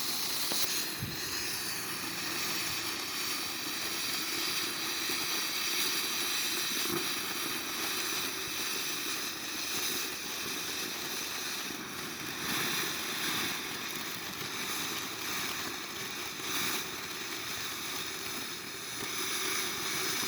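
Firework fountain spraying sparks with a steady hiss, swelling briefly louder a few times.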